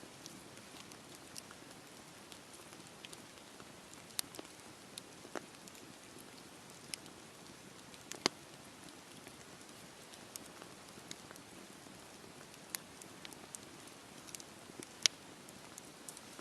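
Campfire burning: a low steady hiss of flames with sharp crackles and pops from the wood at irregular intervals, the loudest pops about halfway through and near the end.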